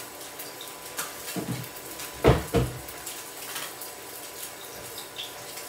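Kitchen items being handled on a worktop: a light click about a second in, then two loud, dull knocks about a third of a second apart, like a bottle or utensil being set down.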